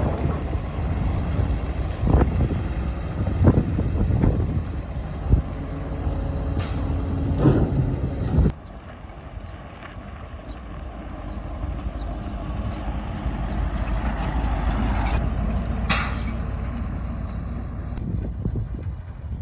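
Excavator's diesel engine running under load, with the bucket knocking and scraping against rock several times. About eight seconds in the knocking stops abruptly and the engine runs on more quietly, building up again, with a short hiss near the end.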